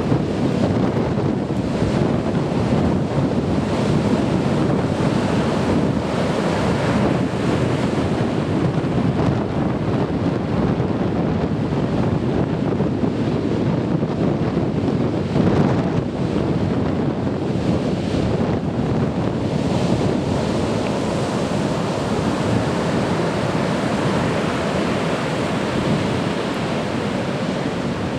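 Heavy typhoon surf breaking and rushing continuously, with a slightly louder swell about midway, and wind buffeting the microphone.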